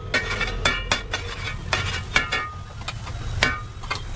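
A metal spoon clinking and scraping against a black iron frying pan as butter is spread in it, in several sharp ringing strikes, with a light sizzle from the butter melting over a steady low rumble.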